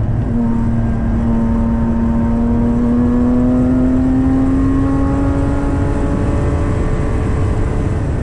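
Porsche Cayman GT4's naturally aspirated flat-six heard from inside the cabin, pulling in one gear, its note climbing slowly and steadily over several seconds. Under it runs a steady road and tyre rumble.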